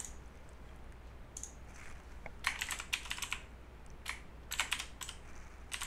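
Typing on a computer keyboard while a file name is entered in a save dialog: single keystrokes and short quick runs of them, with pauses between, over a faint steady low hum.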